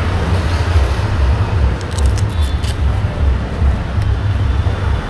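Street traffic noise: a steady low rumble of passing vehicles, with a few faint clicks about two seconds in.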